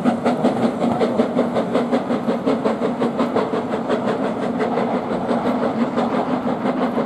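BR Standard Class 4MT steam locomotive 75078 working a train of coaches away, its exhaust beating in a steady rhythm about four times a second over the rumble of the passing coaches, growing a little fainter toward the end.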